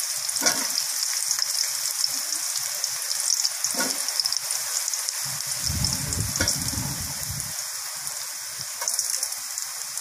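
Chopped onion, curry leaves and long green chillies sizzling and crackling in hot oil in a steel kadai, with a few ticks of a steel slotted ladle. A brief low, muffled rumble a little past halfway.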